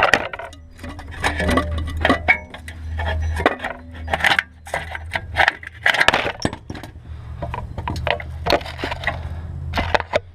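Irregular metal clinks, knocks and scrapes as an alternator is worked free of its mounting and slid out of a 2004 Ford Focus 2.3 engine bay, over a steady low hum.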